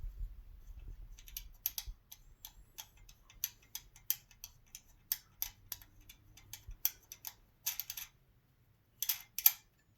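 Irregular small clicks and ticks, one or two a second, as a small screw on a telescope's finder mount is turned and tightened by hand; two sharper clicks close together near the end.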